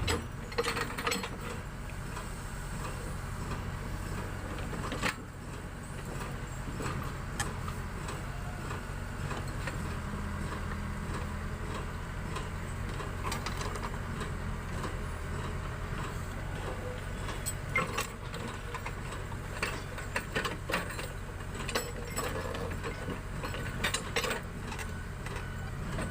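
Case 580 Super K backhoe's diesel engine running steadily while digging, with scattered clanks and knocks, more frequent near the end.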